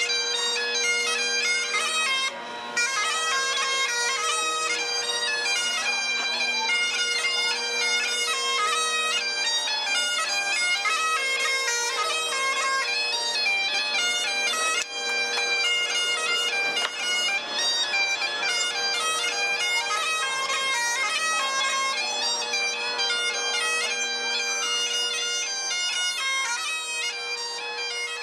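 Bagpipes playing a tune: a steady drone sounds under a chanter melody that steps quickly from note to note.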